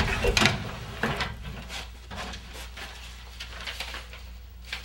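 An old wooden wardrobe trunk being opened with a knock at the start, then a string of soft rustles and light knocks as its contents are handled.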